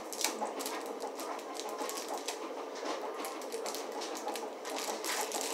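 Plastic candy wrapper crinkling and crackling as it is handled and pulled open by hand, a dense run of small sharp crackles.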